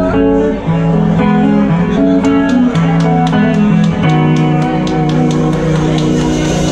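Live rock band playing: electric guitars holding sustained notes over a bass line, with drums and regular cymbal ticks coming in about two seconds in.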